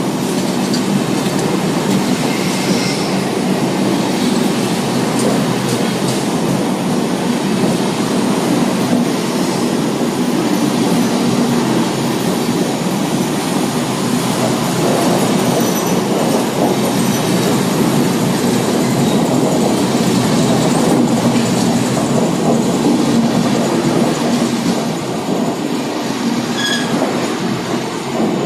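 Rajdhani Express LHB passenger coaches rolling past close by as the train pulls out: a steady, loud rumble of steel wheels on the rails, with a few faint clicks.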